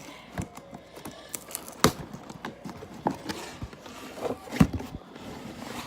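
Irregular knocks, clicks and scrapes from handling a cardboard package as it is opened, with two sharper knocks about two seconds in and near the end.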